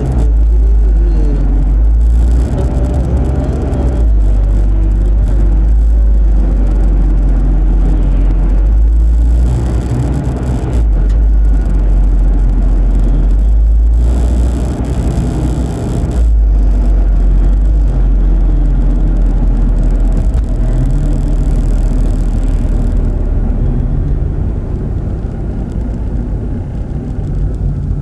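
A car being driven, heard from inside the cabin through a windshield-mounted phone: a heavy low road-and-engine rumble, with the engine note rising and falling as the car speeds up and slows. It eases off somewhat in the last few seconds.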